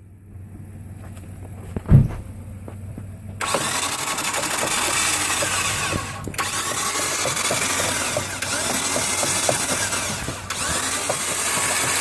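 Starter cranking a 1999 Mitsubishi Galant's 3.0-litre V6 over without it firing: a crank-no-start condition. It begins about three seconds in and dips briefly twice. A single thump comes about two seconds in, before the cranking.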